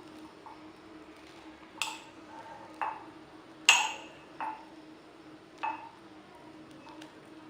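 Five sharp clinks of a metal utensil knocking against a glass, at irregular intervals of about a second, each leaving a short ring; the loudest comes about midway.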